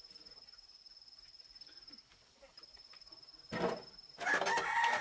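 A rooster crowing near the end, one loud call of about a second and a half, with a short noisy burst just before it, over a steady high-pitched whine.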